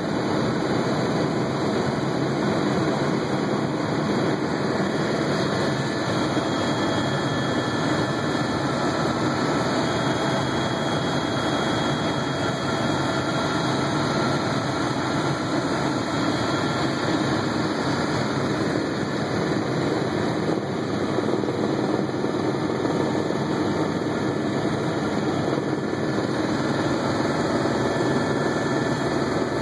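Helicopter in flight heard from inside the cabin: a steady, even drone of engine and rotor noise.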